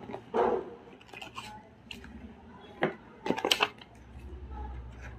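Cardboard camera box being opened by hand: flaps folded back and paper leaflets handled, giving scattered scrapes and rustles, with a cluster of sharp clicks and taps about three seconds in.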